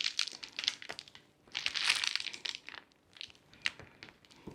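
Wrapping material crinkling and rustling as it is handled, in irregular spells with two short pauses.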